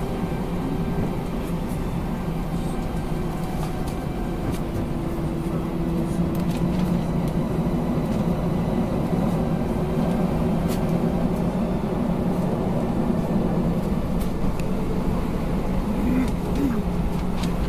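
Jet airliner cabin noise while taxiing: a steady hum of the engines and cabin air, with a constant low drone, heard from inside the passenger cabin.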